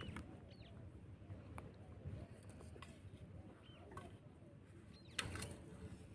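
Quiet rural background with a few faint, short chirps from small birds and scattered light clicks, and a brief louder knock about five seconds in.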